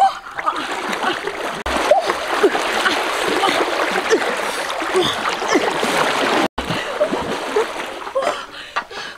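Water splashing and churning as a person wades through a shallow river, pushing a large metal wok along the surface. The sound cuts out for an instant about six and a half seconds in, then the splashing goes on more lightly.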